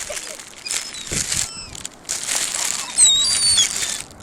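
Crinkling and rustling, as of a bread or cracker bag being handled, in loud bursts. A few short high-pitched chirps come through about three seconds in.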